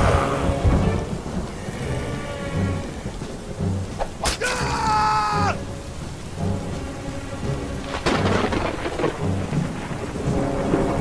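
Heavy rain and thunder over dramatic music with a low drumbeat about every second and a quarter. There is a sharp crack about four seconds in, followed by a loud tone that sinks slightly, and a thunder crash about eight seconds in.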